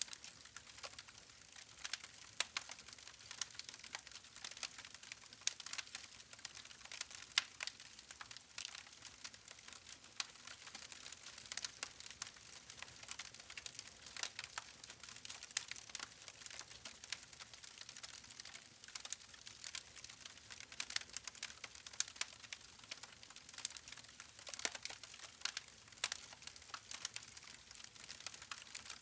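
Wood campfire crackling: frequent, irregular small pops and snaps over a soft, steady hiss.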